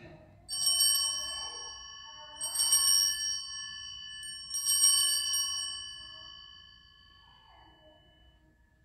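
Altar bell rung three times, about two seconds apart, marking the elevation of the chalice at the consecration; each ring hangs on and slowly fades away.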